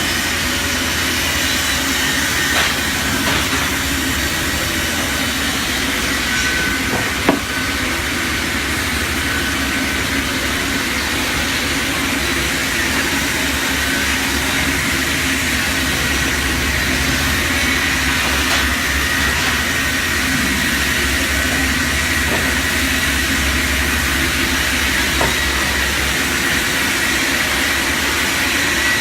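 High-speed log cross-cut saw machine running steadily, a constant mechanical noise with a low hum and a thin high tone, broken by one sharp knock about seven seconds in.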